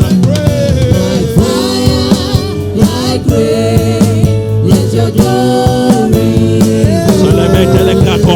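Gospel worship music: a sung melody over instruments with a steady beat.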